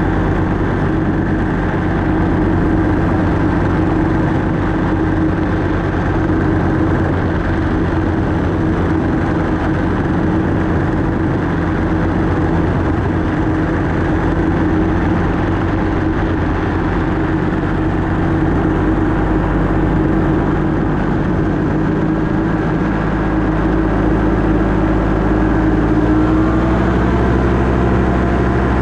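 Paramotor engine and propeller running steadily; the engine pitch rises a little near the end.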